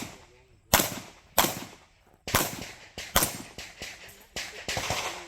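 Pistol fired in quick strings, about a dozen sharp shots in pairs and fast runs, with a short pause about two seconds in.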